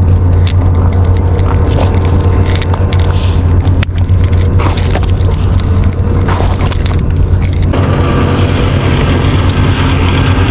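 A loud, steady low hum from an unseen motor or machine, with small sharp clicks of split-ring pliers and a treble hook being worked on a fishing lure; near the end a hiss comes up over the hum.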